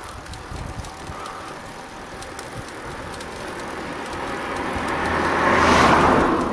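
A car approaches and passes the cyclists, growing louder to a peak about six seconds in and then fading, over steady wind and tyre noise on a bike-mounted microphone.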